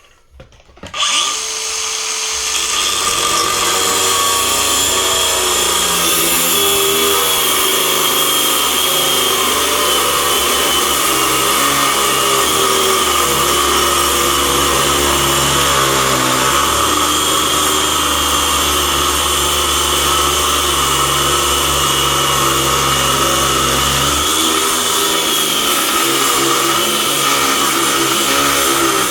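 DeWalt DCG440 60V FlexVolt 7-inch cordless angle grinder spinning up about a second in, then cutting steadily through 3/4-inch steel plate. The motor's pitch wavers under load, but it keeps running without cutting out.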